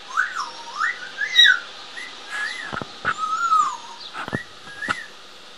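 African grey parrot whistling: a string of short whistled notes that glide up and down, with a few sharp clicks in between.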